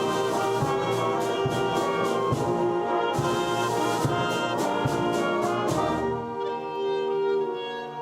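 A concert band playing live, brass to the fore, with regular percussion strikes under full ensemble chords; about six seconds in it drops to softer held chords.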